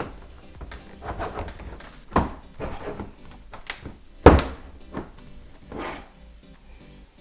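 A pry tool working a clipped trim piece on a Toyota 4Runner's front bumper: a run of clicks and knocks, the loudest about two seconds in and just after four seconds.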